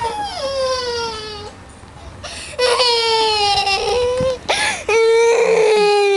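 A young child crying in three long wails, the first falling in pitch and the last two louder. The parent puts the crying down to fear of the dark under the blanket.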